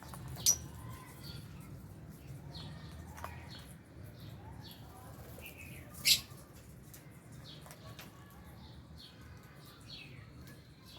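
A flock of lovebirds and budgies chirping steadily in an aviary. Two much louder, shrill calls stand out, one about half a second in and one about six seconds in.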